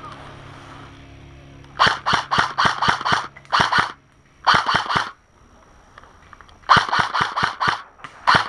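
Airsoft rifle firing in rapid strings of sharp shots, five bursts in all, starting about two seconds in, the last near the end.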